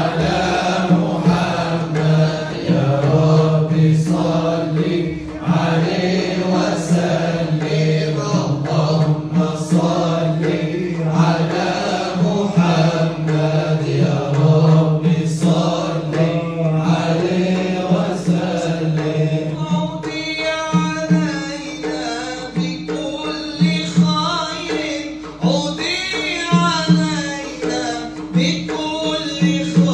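Men's voices chanting an Arabic nasheed over a steady held drone. From about twenty seconds in, a single voice leads with a wavering melody above it.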